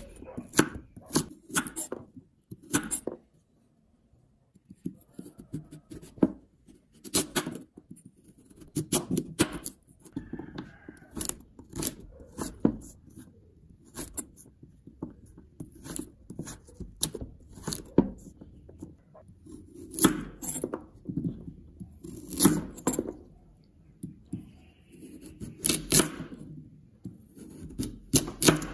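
Kitchen knife slicing through raw sweet potato and knocking on a thick wooden cutting board: an irregular run of crisp cuts and knocks, with a short pause about four seconds in.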